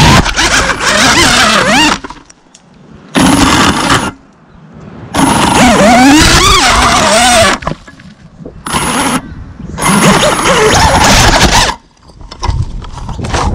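FPV racing quadcopter's brushless motors whining in about five loud bursts, their pitch gliding up and down with the throttle, with short quiet gaps between. The throttle is being punched while the drone is caught in tree foliage.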